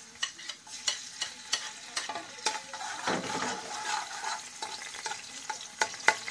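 Ginger and garlic sizzling in hot cooking oil in a pan, stirred with a spoon that clicks and scrapes against the pan again and again.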